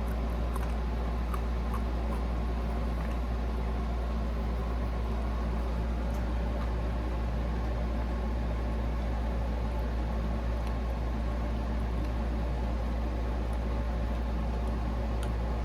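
Steady low mechanical hum, unchanging throughout, with a few faint scattered clicks.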